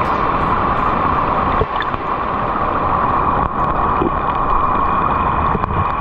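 Steady rushing of a rain-swollen mountain stream running in spate as a muddy torrent, loud and unbroken.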